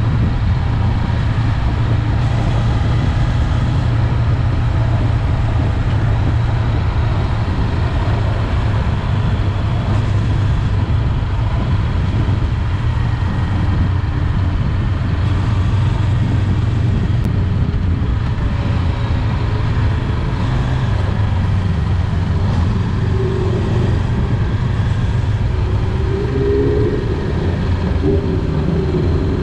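Honda 400X's parallel-twin engine running steadily while the motorcycle is under way, with wind and road noise over it.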